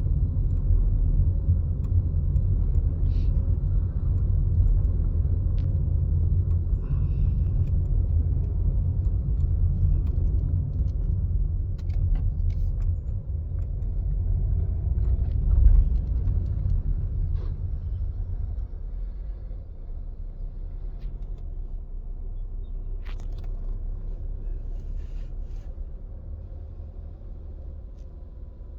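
Volkswagen Polo 1.4 turbo with 7-speed DSG pulling away, a strong low rumble that is loudest for the first 16 seconds or so and then eases off. This is the pulling-away moment where the owner hears a grinding noise he likens to the clutch slipping.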